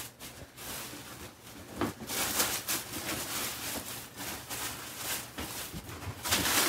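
Plastic bag crinkling and rustling as it is handled and pulled out of a tote bag, louder and denser from about two seconds in.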